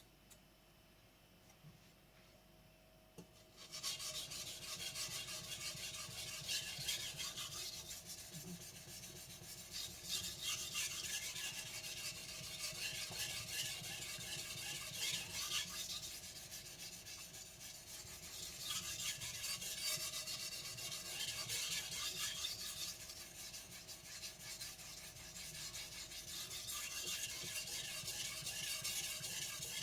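Blue steel gyuto blade being sharpened on a wet Japanese whetstone: repeated scraping strokes of steel on stone that begin about four seconds in and carry on without a break.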